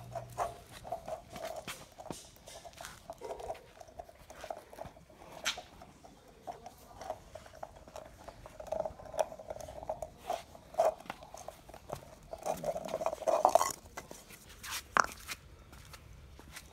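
Mudhol hound puppies playing: scuffling, mouthing and chewing at a jute mat and a coconut husk, with many small clicks and short, high puppy play-growls. The sounds are loudest about 13 seconds in.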